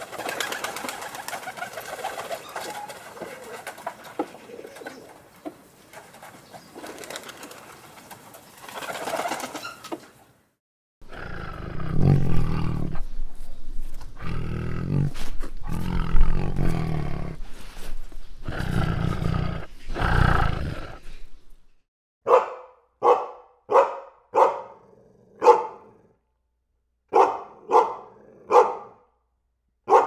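A flock of feral rock pigeons cooing, with wing flapping. After a break, a tiger gives a series of deep roars and growls. Near the end comes a run of about nine short, sharp calls.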